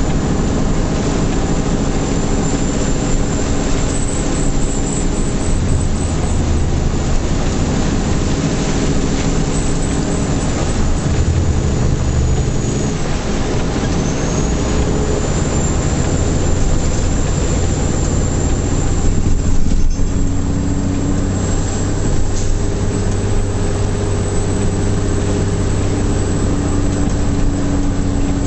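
Heavy truck's diesel engine running steadily under load, heard from inside the cab, over tyre noise on a wet road. The engine note shifts a couple of times around the middle.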